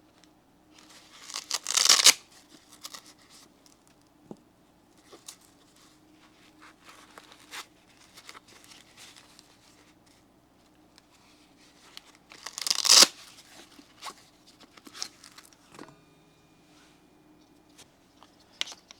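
Packaging being torn open and handled: two loud tearing rushes, one about two seconds in and one about thirteen seconds in, with small clicks and rustles between them.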